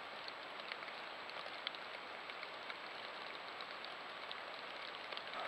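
Steady rain falling, an even hiss with scattered light ticks of drops, over a thin constant high whine.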